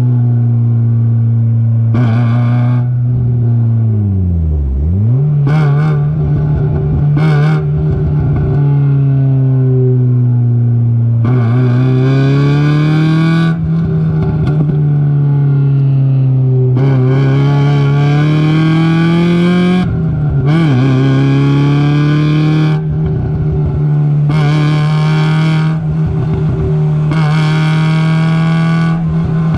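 Onboard sound of a Mazda race car's engine at racing speed, its pitch falling and climbing several times as the car brakes and accelerates around the track, with a sharp drop and quick recovery about four seconds in and again near twenty seconds.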